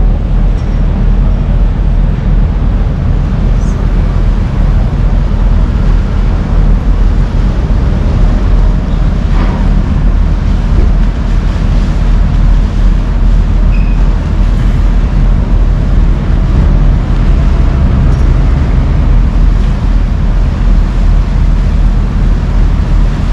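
Car ferry's engine running with a steady, loud, low drone.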